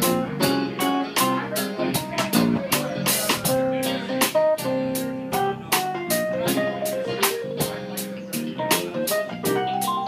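Small live band playing an instrumental with electric guitar and drum kit over a steady beat.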